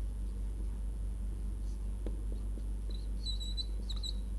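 Whiteboard marker squeaking in a few short, high strokes about three seconds in as it writes, with a couple of faint taps, over a steady low hum.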